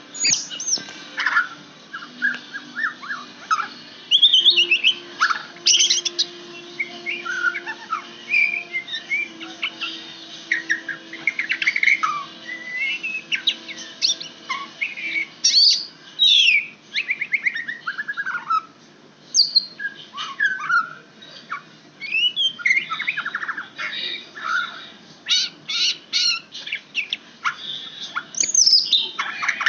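White-rumped shama singing: a continuous run of varied whistled phrases and quick trills that sweep up and down in pitch, with short pauses between phrases.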